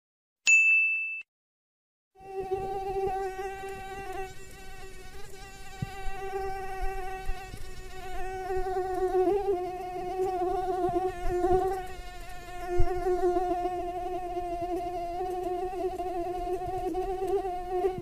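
A short high beep, then, about two seconds in, a flying insect's buzz starts and carries on steadily to the end, swelling and fading a little as it goes.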